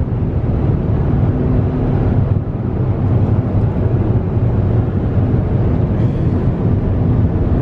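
Steady road and engine rumble heard inside the cabin of a moving car, with a faint steady hum under it.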